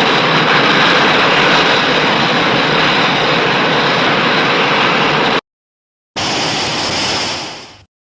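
Designed Godzilla-style monster roar sound effect: a loud, harsh, noisy blast that cuts off abruptly about five seconds in, then a shorter second blast that fades away near the end.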